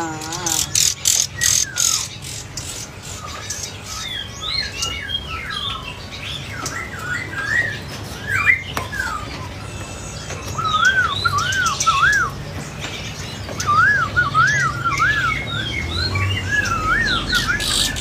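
Caged songbirds chirping and twittering, with a run of repeated rising-and-falling whistled notes in the second half.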